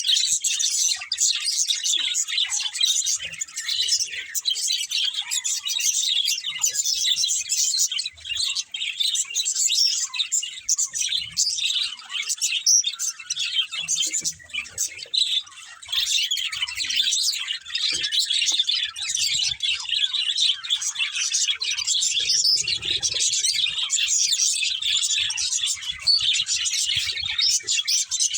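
Budgerigars chirping and chattering continuously, many quick overlapping high-pitched chirps and warbles with hardly a pause.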